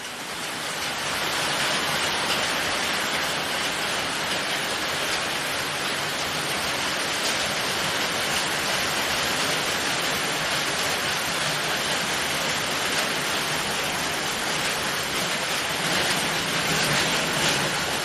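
Steady rushing water with faint scattered patter, fading in over the first two seconds and then holding even.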